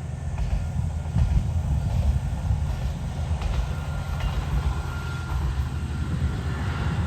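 A train running past with a steady low rumble, and a faint thin whine joining in from about halfway through.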